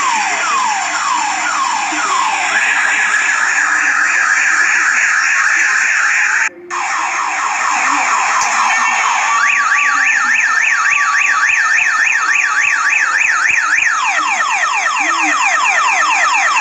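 Electronic siren of an odong-odong tourist road train cycling through its tones. It starts with quick falling sweeps, about two a second, then holds a steady tone, cuts out briefly about six and a half seconds in, then plays a fast up-and-down warble over a pulsing tone, and returns to falling sweeps near the end.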